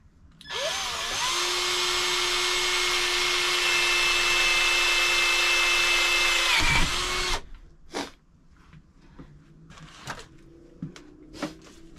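Cordless drill boring a hole in a PVC pipe: the motor spins up about half a second in, runs steadily for about seven seconds, then winds down and stops. A few light knocks follow.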